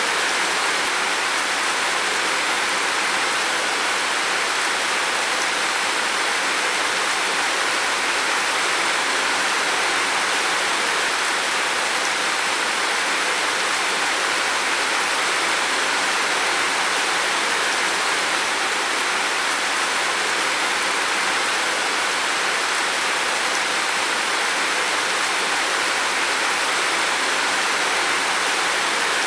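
Heavy rain falling on a roof, a steady, even hiss of rain with no pauses or changes.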